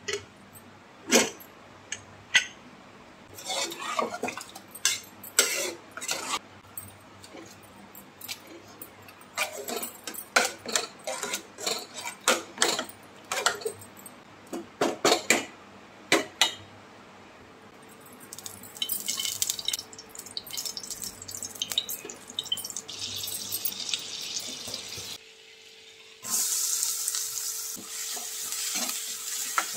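A hand masher knocking and clinking against the inside of an aluminium pressure cooker as boiled vegetables are mashed, in a run of sharp irregular knocks that gives way to softer scraping and squelching. About 26 s in, chopped onions start sizzling in hot oil in a pan.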